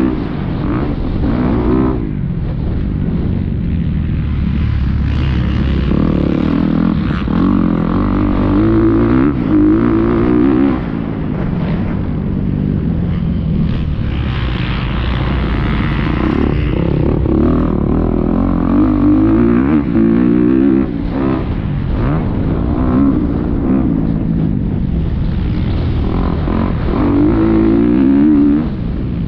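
Motocross bike engine heard from onboard, revving up and dropping back over and over as the rider accelerates, shifts and rolls off around a dirt track.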